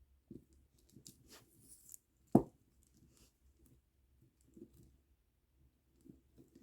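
Quiet handling of a plastic-bead kandi bracelet: scattered soft clicks and rustles of beads, with one sharp knock about two and a half seconds in.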